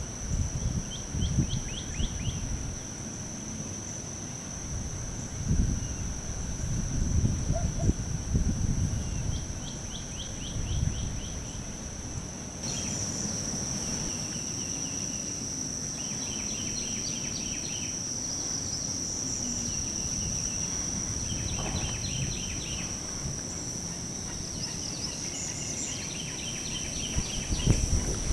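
Outdoor wetland soundscape: a steady high-pitched whine, with many short rattling trills of rapid ticks from calling animals repeated throughout. Wind rumbles on the microphone in gusts during the first half and again near the end.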